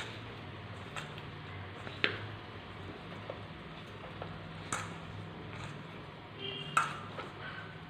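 Hand kneading soft maida dough in a steel bowl: quiet squishing with a few short sharp clicks of metal against the bowl, over a faint steady low hum.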